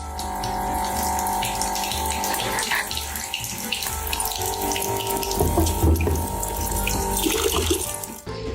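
Running water, like a tap running into a sink: a steady rush that stops near the end.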